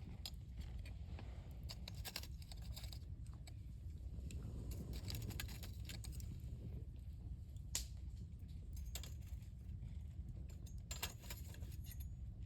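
Wood bonfire crackling: irregular small pops and snaps, one sharper pop about two-thirds of the way through, over a steady low rumble.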